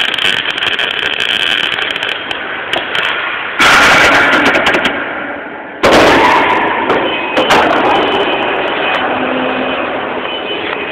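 MAG welding arc (argon with 18% CO2) crackling steadily as it welds a seam in 1 mm steel sheet. The crackle turns sharply louder about three and a half seconds in and again near six seconds, then fades off gradually each time.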